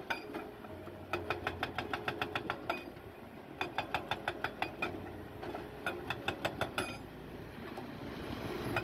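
Hydraulic rock breaker on a Volvo crawler excavator hammering rock: four bursts of rapid, evenly spaced blows, about eight a second, each burst lasting one to two seconds. The excavator's diesel engine runs steadily underneath and between the bursts.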